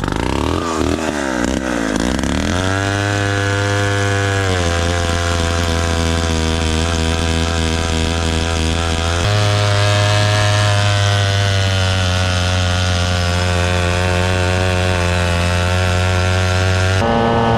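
1957 Danarm Fury chainsaw's 98cc Villiers 5F two-stroke engine running. Its speed swings up and down for the first couple of seconds, then holds steady, changing abruptly to a new steady speed a few times.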